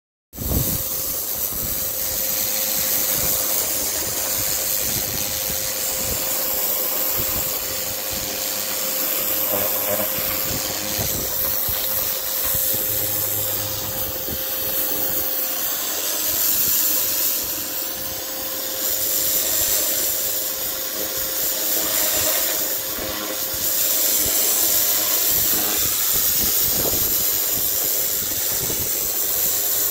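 Kärcher pressure washer blasting a high-pressure water jet against a concrete wall: a steady hiss from the jet over a constant hum.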